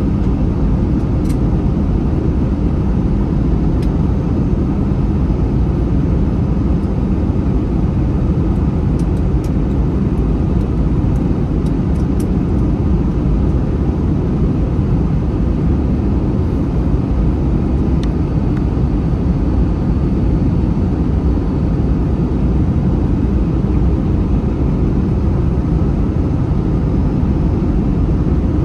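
Steady cabin noise of an Airbus A321 airliner in flight: engine and airflow noise heard from inside the passenger cabin, with a few faint ticks.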